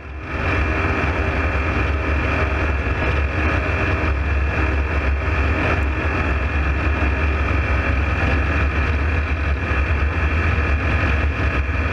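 A steady, loud motor or engine running, with a deep rumble under a steady high whine.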